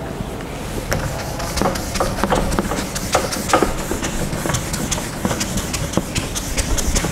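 Whiteboard eraser scrubbing back and forth across a whiteboard: a steady scratchy rubbing, dotted with many small knocks.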